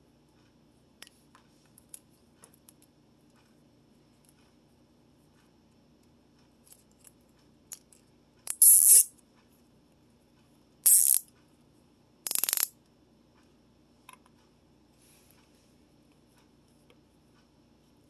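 Hands working on a bicycle bottle-holder mount: scattered light clicks and taps, then three short, loud rasping bursts about two seconds apart, the last a rapid ratcheting rasp.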